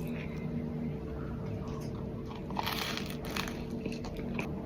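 Toast with banana and cinnamon spread being chewed, with a few soft crunches about two and a half to three and a half seconds in and another near the end.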